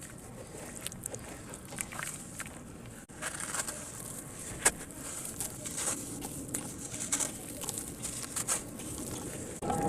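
Sand cement crumbling in water: a steady fizzing crackle with scattered small clicks, and one sharp snap a little under five seconds in.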